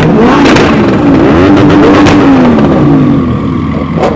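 Several tuned supercar engines revving hard, their pitch sweeping up and down over one another, with sharp cracks mixed in. The revving eases somewhat near the end.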